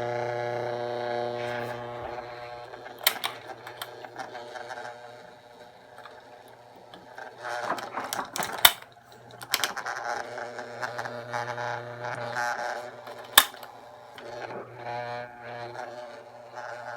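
Standard SSM 16 electric fan making a steady electrical buzz, a fault in the fan. The buzz fades and comes back a few times, with sharp clicks in between.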